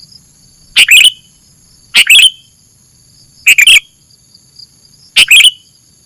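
Sooty-headed bulbul (kutilang) calling: short, loud bursts of two or three quick notes, four times at intervals of about one and a half seconds. Under them run steady high-pitched insect tones.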